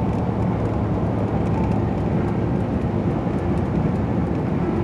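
Steady engine and road noise of a car in motion, heard from inside the cabin: an even low rumble with a constant hum.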